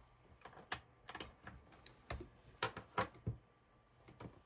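Light, scattered clicks and taps of plastic connectors and cable being handled, from a USB-to-SATA adapter being readied to connect an SSD. There are about eight small, irregular clicks.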